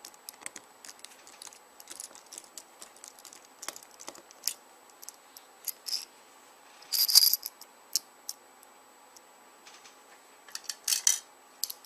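Small scattered clicks and taps of a T6 Torx screwdriver backing out the tiny rear case screws of a BlackBerry 9650 and of the loose screws being handled, with a louder metallic rattle about seven seconds in and a short cluster of clicks near the end.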